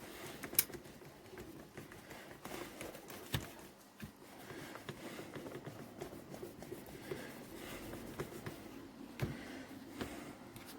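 Hands working over an old hand drill: continuous scratchy rubbing with many light clicks, and a few sharper knocks, the loudest about half a second in.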